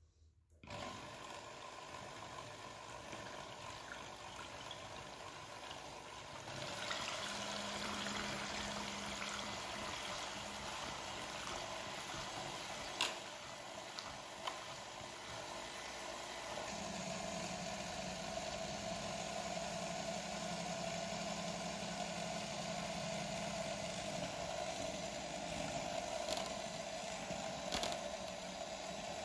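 Electric hand mixer running, its twin beaters whipping vegetable cream in a plastic bowl: a steady motor whirr that gets louder about six seconds in. Two sharp clicks around the middle.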